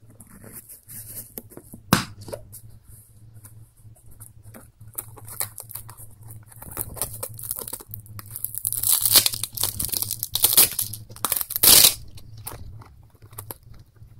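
Nylon fabric of a bicycle handlebar bag rustling and crinkling as it is handled, with a sharp click about two seconds in. Between about eight and twelve seconds there are several loud rips of its hook-and-loop (Velcro) mounting straps being pulled apart.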